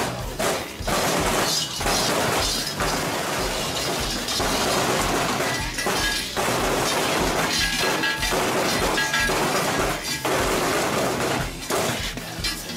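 Krampus costume bells clanging and jangling loudly, over played music with a steady deep beat about twice a second.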